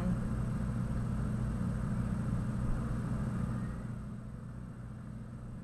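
Room tone: a steady low hum with a light hiss over it, the hiss dropping away about three and a half seconds in.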